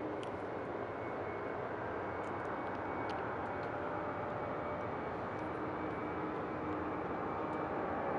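The four jet engines of a Boeing 747-400F freighter, heard from a distance as a steady jet roar at the start of its takeoff. The noise grows slowly louder, and near the end a faint whine rises in pitch as the engines spool up.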